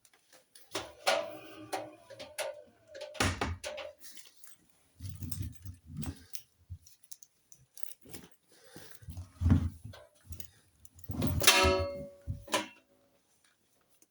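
Hoover washing machine being set up: clicks and knocks from its door and controls, with electronic beeps from the control panel. The loudest is a pitched tone about eleven seconds in.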